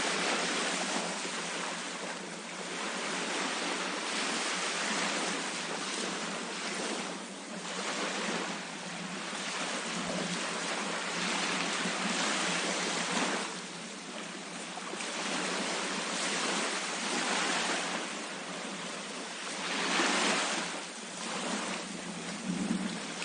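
Ocean waves breaking on a beach, the surf swelling and falling back every few seconds in a steady wash of noise.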